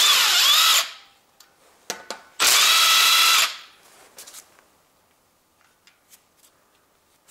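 Makita cordless impact driver with a 10 mm socket, run in two bursts of about a second each, at the start and about two and a half seconds in, undoing camshaft bearing cap bolts on a Toyota 2ZZ-GE cylinder head. Faint clicks of the socket and bolts follow.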